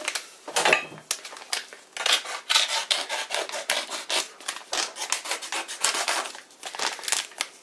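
A long kitchen knife cutting open a plastic bag of paprika powder: a run of short crackles and scrapes as the blade works through the plastic and the bag crinkles in the hand.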